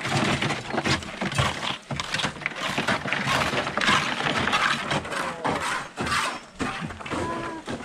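Wet concrete with gravel being tipped from metal pans into a steel pipe mould and worked with a trowel: gritty scraping and scattered clinks of stone and metal.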